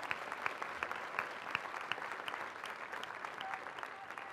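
Large crowd applauding, many hands clapping densely, dying down toward the end.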